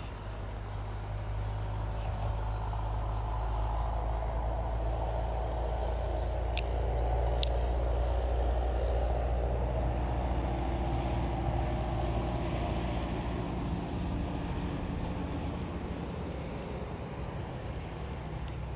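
A heavy motor vehicle passing: a low engine rumble that swells over the first eight seconds or so, then fades away. Two short high chirps come about seven seconds in.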